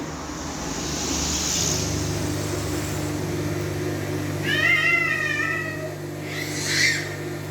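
A cat meowing twice: a longer, wavering call about four and a half seconds in and a shorter one near the end, over a steady low hum.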